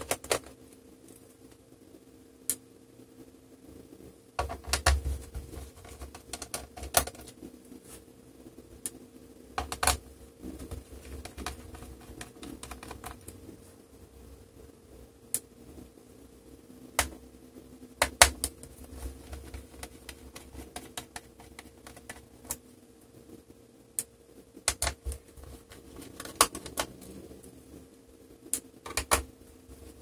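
Irregular small clicks, taps and now and then a louder knock of a screwdriver and fingers undoing the screws in the plastic bottom case of a Dell Inspiron 3793 laptop.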